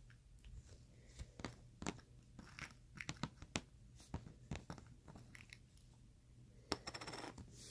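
Faint, irregular sticky clicks and crackles of fluffy shaving-foam slime being squeezed and kneaded by hand, a little busier near the end.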